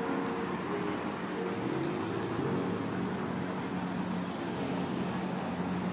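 Upright piano played in held notes and chords in its lower-middle range, over the steady noise of passing street traffic.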